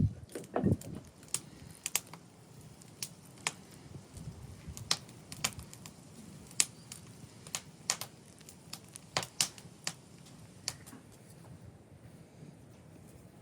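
Scattered sharp clicks and taps at uneven spacing, with a duller knock just under a second in.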